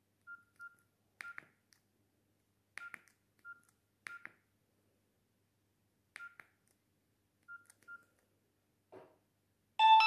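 Nokia 6630 keypad beeping as its keys are pressed through the menus: several short, quiet beeps at one pitch, mixed with faint plastic key clicks. Just before the end, the phone starts playing a ringtone preview, a loud bright melody.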